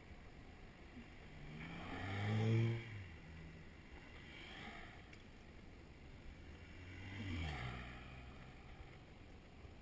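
Cars passing close by on the road: one swells up loudest about two and a half seconds in and cuts away, another goes by about seven and a half seconds in with its engine note dropping as it passes, over steady road and wind noise.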